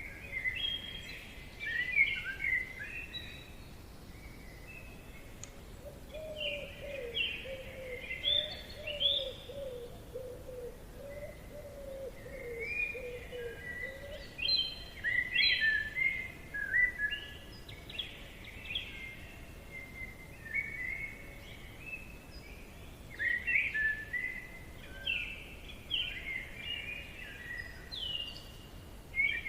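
Forest songbirds singing in bursts of short, quickly changing notes, with a lower wavering call running for several seconds from about six seconds in, over a faint steady background hiss.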